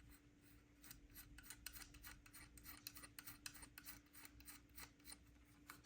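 Faint, irregular small clicks and scraping of a small cap being fitted by hand onto a kill-switch part, over a faint steady hum.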